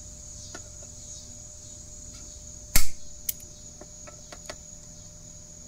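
Locking pliers clamped on the bent tip of a stainless steel outboard propeller blade, bending it straight: one sharp metallic snap about three seconds in, then a few light clicks. A steady high insect trill runs underneath.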